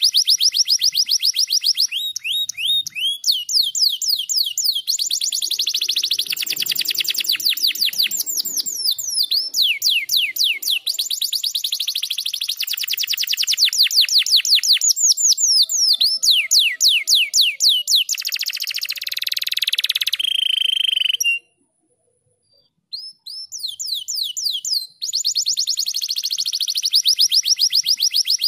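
Domestic canary singing: fast trills of repeated high notes, switching to a new trill every second or two. The song breaks off for a second or two about three-quarters through, then resumes.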